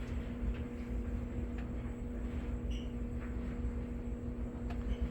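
Steady background hum and low rumble, with a few faint light clicks.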